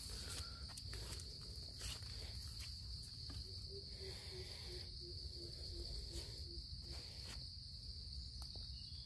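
Steady high-pitched drone of insects such as crickets in a bamboo grove, with faint rustling steps over dry bamboo leaf litter. Midway through comes a run of about eight soft low hooting notes, falling slightly.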